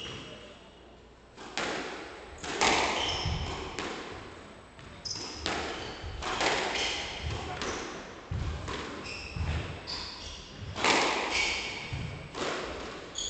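Squash rally: the ball is struck by rackets and smacks off the walls roughly once a second, each hit echoing briefly. Short high squeaks from the players' court shoes on the wooden floor come between the shots.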